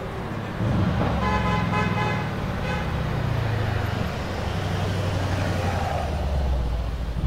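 Mercedes-AMG C63 coupé's twin-turbo V8 running at low speed as the car rolls past, a deep exhaust rumble throughout. About a second in, a horn sounds for about a second and a half over it.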